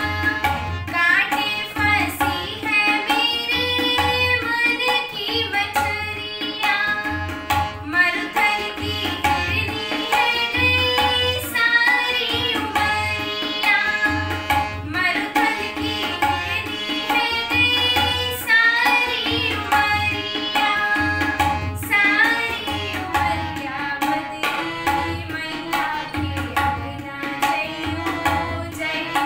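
A girl singing a Bhojpuri kajri folk song to her own harmonium, with tabla keeping kaharwa taal. Deep bass-drum strokes of the tabla pulse evenly under the voice and the held harmonium notes.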